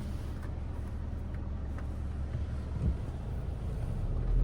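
Steady low rumble of a car being driven, the engine and road noise heard without a break, with a few faint knocks and a slightly louder one about three seconds in.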